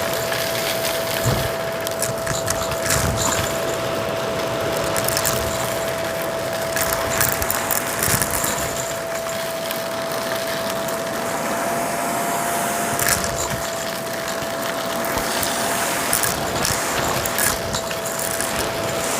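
Shark Rotator vacuum running with a steady whine, its open hose sucking up crunchy debris that crackles and clicks irregularly as it rattles through the hose.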